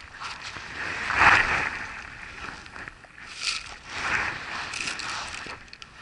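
Close rustling and handling noise from an angler's jacket sleeves and spinning rod and reel as he works a retrieve. There are several short scuffing bursts, the loudest about a second in.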